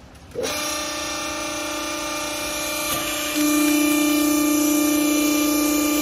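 Hydraulic cloth baler's electric motor and hydraulic pump starting up about half a second in and running with a steady hum, stepping up louder a little past halfway as the pressing platen is raised off the strapped bale.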